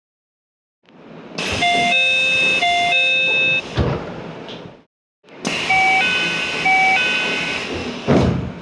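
Keio train door chimes in two separate recordings. The first is a falling two-note chime played twice; the second is a different two-note chime, also played twice. Each chime runs over the hum of the train and is followed by a short knock.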